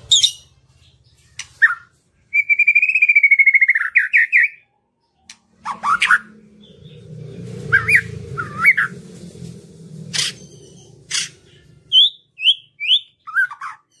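White-rumped shama (murai batu) singing a varied song: a long rapid trill, then slurred whistles and sharp clicking notes, ending in a quick run of short falling notes. A low rumble sits beneath the middle of the song.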